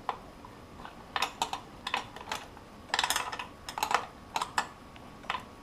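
Irregular light metallic clicks and clinks of a hand wrench working the bolts on a motorcycle's rear axle and chain adjuster.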